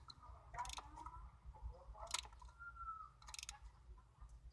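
Socket ratchet clicking in three short bursts as new spark plugs are tightened down by hand.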